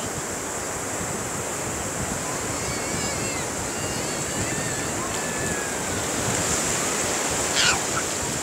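Shallow sea surf washing and fizzing over the sand in a steady rush, with wind on the microphone. A few faint high-pitched wavering calls sound in the middle, and a brief high cry near the end.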